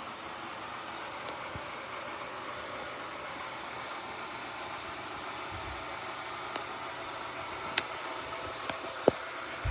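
Vintage Whirlpool refrigerator running with a steady hum. A few light clicks come near the end, the sharpest about nine seconds in.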